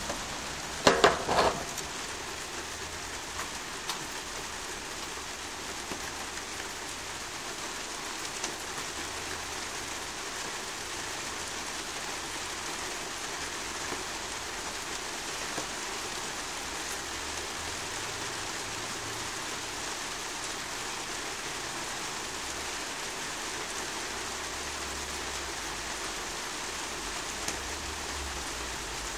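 Steady rain falling during a thunderstorm, an even hiss throughout, with a brief louder sound about a second in.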